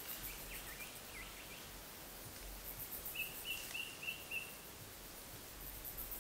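A bird calling: a few short falling whistled notes in the first second and a half, then a quick run of about six short notes about three seconds in. Faint high insect chirps sound throughout.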